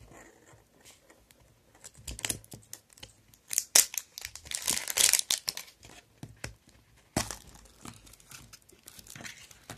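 Printed plastic wrapper being torn and peeled off a surprise-egg plastic capsule, crinkling irregularly and loudest around the middle. A sharp click comes about seven seconds in.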